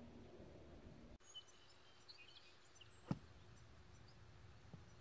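A single short, sharp strike about three seconds in: a golf club hitting the ball out of a bunker, over faint bird chirps.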